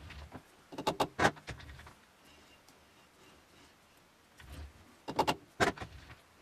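Four-jaw lathe chuck being worked with its chuck key to clamp and true a workpiece: two clusters of sharp metal clicks and knocks, about a second in and again near the end.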